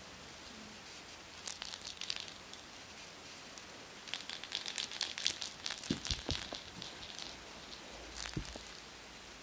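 A kitten batting at a feather wand toy: scratchy rustling and crinkling in short bursts, busiest in the middle, with a couple of dull bumps.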